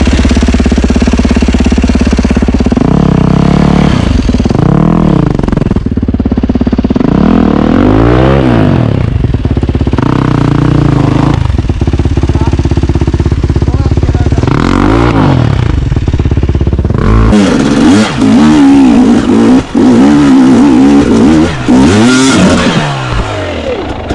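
Enduro dirt bike engine running steadily at first, then revved up and down in repeated bursts as the throttle is worked, with a run of quicker blips in the last few seconds.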